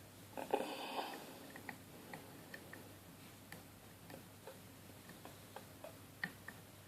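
Hook pick working the pins of a Zone 5-pin Euro cylinder under tension, giving faint, irregular clicks as pins are lifted and set, with the lock held in a false set. A brief louder noise about half a second in.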